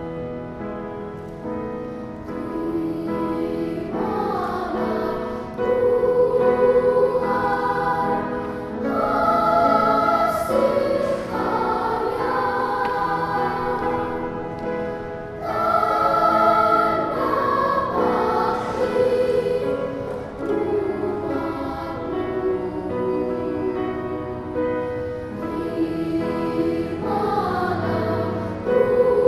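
Children's choir singing, moving through long held notes.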